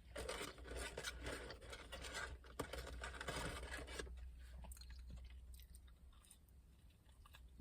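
Close-up chewing and crunching of fast food, busiest for the first four seconds and then quieter, over a low steady hum.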